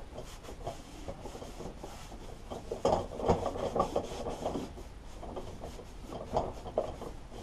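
An old cloth rag wiping and rubbing over a lawnmower's deck, which has been sprayed with WD-40, in irregular scuffing strokes. The strokes are busiest around the middle and again near the end.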